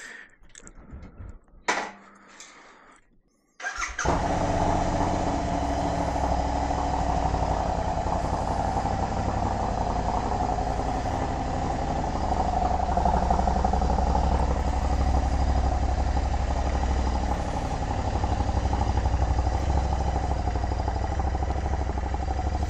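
Royal Enfield 650 parallel-twin motorcycle engine started about four seconds in, catching at once and then idling steadily. A single sharp click comes shortly before it.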